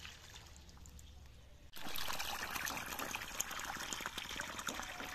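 Water from a garden hose trickling and splashing into a shallow rock-lined pond. It is faint at first, then louder from about two seconds in, with many small splashes.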